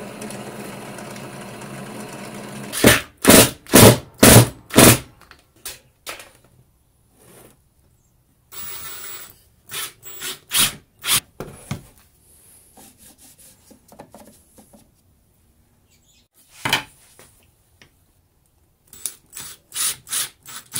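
A benchtop drill press motor running with a steady hum, then several short, loud bursts. After that, a Ryobi cordless driver drives screws through wooden blocks into a melamine board in short bursts, with a cluster of them near the end.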